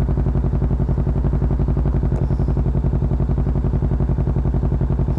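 Kawasaki Ninja 650's parallel-twin engine idling steadily, with a fast, even pulse.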